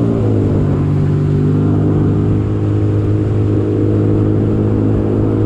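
Sea-Doo jet ski engine running at a steady cruising speed, a loud, even drone whose pitch dips slightly in the first half second and then holds steady.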